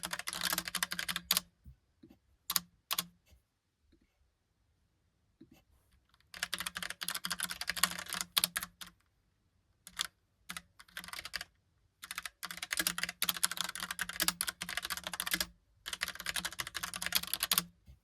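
Typing on a Logitech POP Keys mechanical keyboard with round typewriter-style keycaps: rapid runs of clacking keystrokes lasting a few seconds each, broken by short pauses with only a few single key presses.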